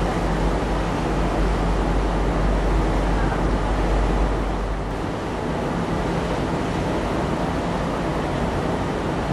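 A ferry's engine runs with a steady deep hum under the rush of water and wind on deck. About five seconds in, the deep engine rumble drops away, leaving mostly the rush of wind and waves.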